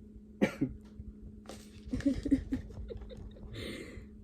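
Brief chuckling: a few short voiced bursts of laughter, with a steady low hum underneath.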